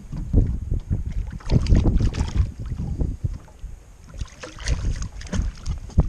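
Gusts of wind buffeting the microphone, with short splashes and knocks as a catfish is hauled up by hand on a jug line alongside an aluminum john boat.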